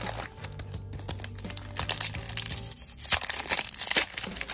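Foil Pokémon Battle Styles booster pack being crinkled and torn open by hand, crackling loudest from about two seconds in, over background music.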